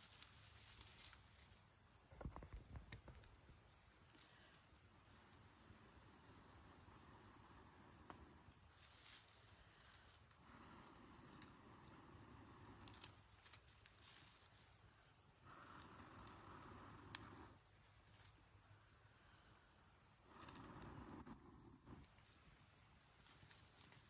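A person blows into a smouldering tinder bundle of wood shavings and char cloth in four long breaths of a few seconds each, nursing the ember toward flame. Insects drone steadily and high-pitched in the background, and there is a short scraping burst about two seconds in.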